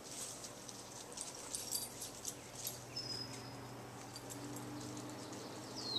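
Faint rustling and snapping of leaves and twigs in woodland undergrowth during the first half, then a faint, drawn-out dog whine held at a steady pitch.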